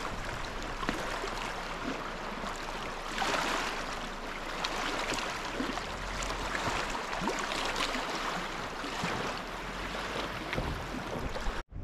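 Lake water lapping and splashing at the shore: a steady rush with many small ticks and splashes, swelling about three seconds in. It cuts off abruptly near the end.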